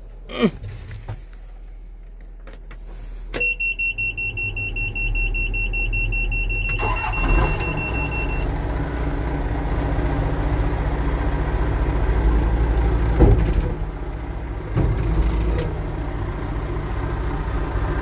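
John Deere backhoe's diesel engine being started: a steady warning buzzer sounds while the starter cranks in quick pulses for about three seconds, then the engine catches and settles into a steady idle, the buzzer stopping shortly after. A single clunk comes about halfway through the idle.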